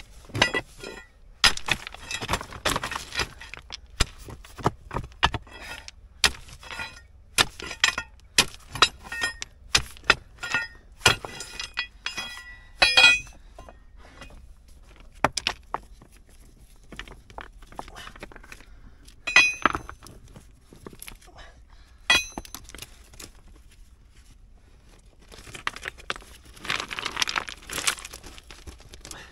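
Loose limestone rocks clinking and knocking against each other as they are pried with a steel bar and pulled out by hand: a long uneven series of sharp clicks, some ringing briefly. Near the end comes a rustling rush of noise as the microphone's fur windscreen is brushed.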